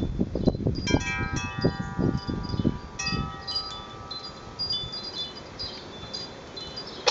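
A wind chime ringing. Several clear tones are struck about a second in and ring out for a few seconds, fresh tones come in about three seconds in, and small high tinkles sound throughout. Low rumbling thumps are heard over the first three seconds.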